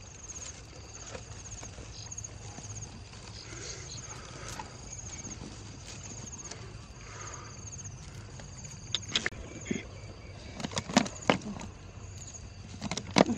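Insects chirp in a steady pulsing trill while a nylon mesh net bag rustles over a bamboo fish trap. In the last few seconds come several sharp clacks and knocks as the bamboo trap is handled.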